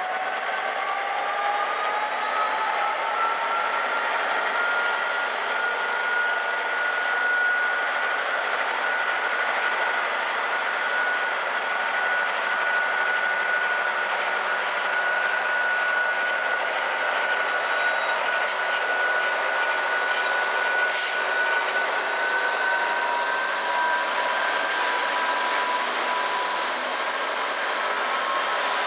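Class 66 diesel-electric freight locomotive's two-stroke V12 diesel pulling away under power. Its whine climbs in pitch over the first few seconds, then holds steady with a slight further rise as the loco accelerates past. Two brief high hisses come about two-thirds of the way through.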